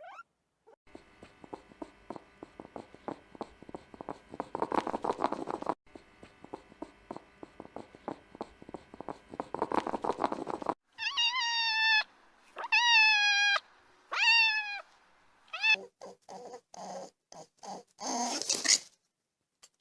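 Domestic cat purring steadily for about ten seconds, broken once by a short gap, then meowing three or four times in calls that slide down in pitch, followed by a run of shorter, choppier calls.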